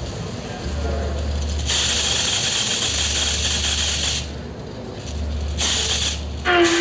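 Electrical hum and hiss from the machines of an interactive sound installation. A low hum cuts in and out in blocks. A loud hiss comes in for about two and a half seconds, then again briefly near the end, and a pitched tone starts just at the close.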